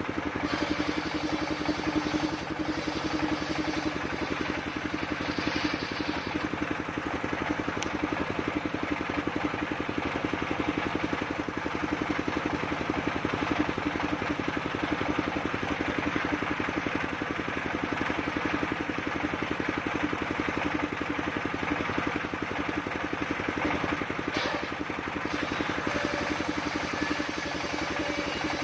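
Engine driving a portable circular sawmill, running at a steady speed.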